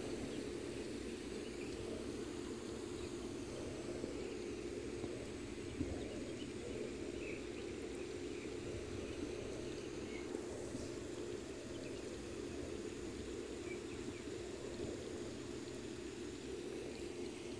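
Steady outdoor background noise, a low rushing sound with a faint steady hum under it and a few faint high chirps.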